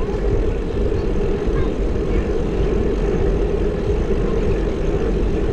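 Steady rushing wind rumble on a bike-mounted action camera's microphone while cycling along a road, with tyre and road noise.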